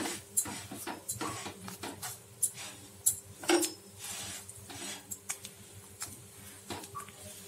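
Metal spatula scraping and tapping on a tawa griddle as butter-toasted pav buns are turned and shifted: a string of irregular clicks and scrapes.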